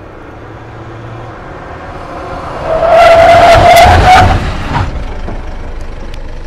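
Mitsubishi L200 pickup coming up and sweeping past close by in a turn, growing louder as it nears. At its closest, about three seconds in, the tyres squeal for a second or so, and then the sound falls away as it drives off.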